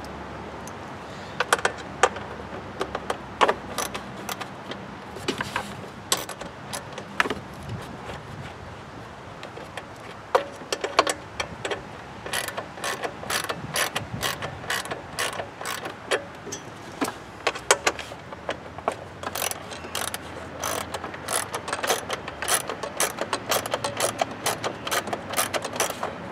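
Hand ratchet wrench clicking in short runs as screws are loosened. The clicks are scattered at first and come in quick, dense runs from about halfway through.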